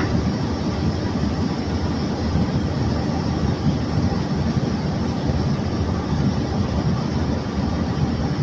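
A steady rumble and rattle of loose crushed coal and river rock sliding and pouring down through the barge's hold as it is unloaded.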